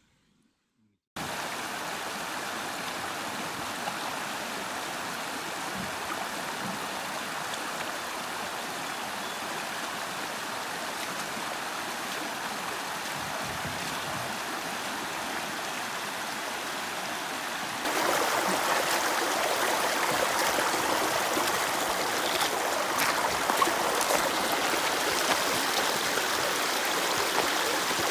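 Steady rush of river water running over a shallow gravel bar, starting after about a second of silence and growing louder about two-thirds of the way through.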